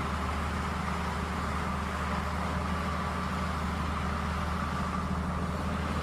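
Bulldozer engine running steadily, a continuous low hum with no change in speed, cutting off at the end.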